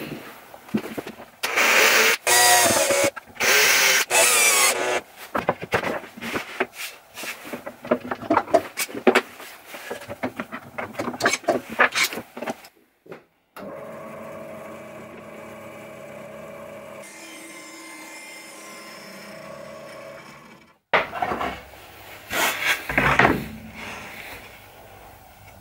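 Workshop tool and board handling: wooden knocks, scraping and short buzzing bursts, then a steady machine hum in the middle. Near the end a bandsaw cuts into a plywood board.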